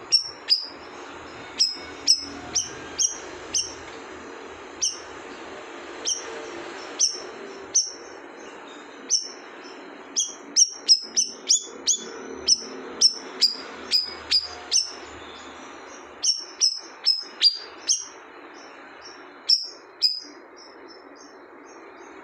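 A cucak rawis, a leafbird, calling over and over with short, sharp high chirps, each a quick downward sweep. They come irregularly, sometimes singly and sometimes in fast runs of several, over a steady background hiss.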